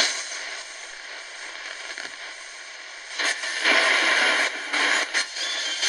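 KNSTAR RX-608ACW portable radio's small speaker giving off hiss and crackle as it is tuned between weak stations near the top of the AM band. The noise grows louder about three seconds in.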